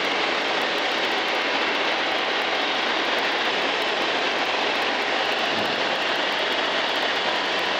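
Steady engine, propeller and wind noise of a light kit airplane in cruise flight, an even rushing drone that does not change.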